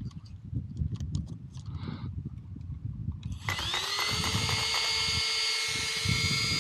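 Brushless electric motor of an RC monster truck spinning up about halfway through: a high whine that rises in pitch for a moment and then holds steady, over a low rumble.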